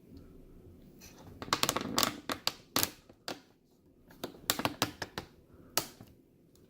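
Small robot parts and tools handled on a work surface: a quick, irregular run of sharp clicks and taps, in two bursts with a short pause between.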